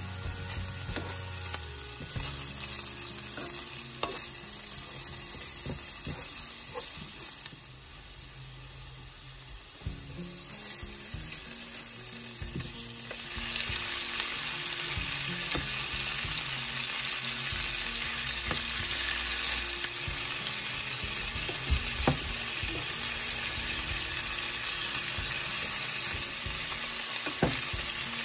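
Chopped onion, garlic and ginger sizzling in oil in a frying pan, stirred with a wooden spoon that scrapes and knocks now and then. About halfway through, chicken wings go into the pan and the sizzle gets louder.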